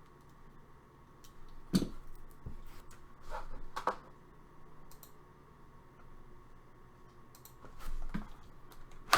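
Hands handling trading card boxes and packs: scattered light clicks, a sharp knock about two seconds in, and brief rustling.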